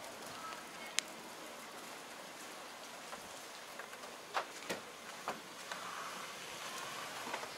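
Steady outdoor hiss of a city street with a few scattered sharp taps.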